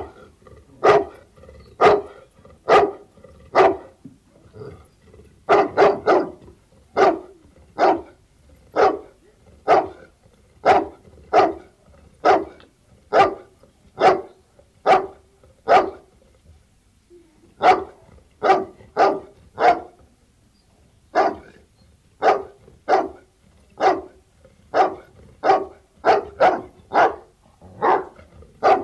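Bullmastiff barking: single barks about one a second, kept up with a few brief pauses.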